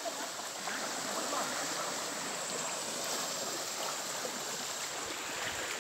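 River in flood rushing steadily over a shallow crossing.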